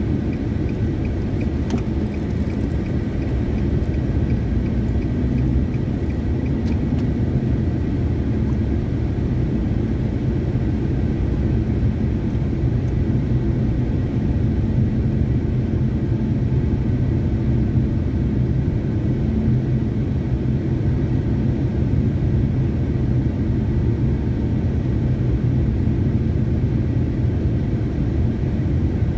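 Steady low rumble of road and engine noise heard inside a moving car's cabin. A faint regular ticking runs through the first several seconds and stops about seven seconds in.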